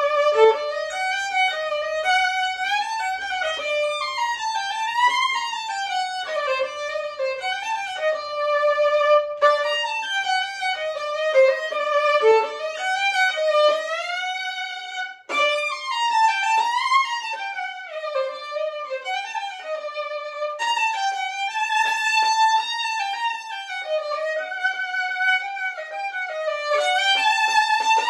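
Unaccompanied solo violin playing a klezmer melody, with many sliding notes between pitches and a short break about halfway through.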